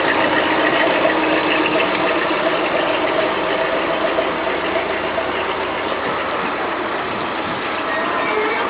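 Engine of road-repair machinery running steadily, easing off slightly toward the end.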